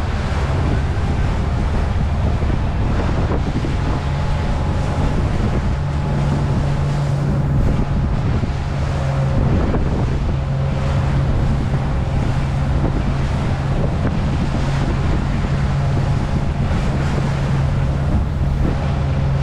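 Sea Ray bowrider's engine running steadily underway, with wind buffeting the microphone and water rushing past the hull. The engine's low hum grows a little stronger about six seconds in.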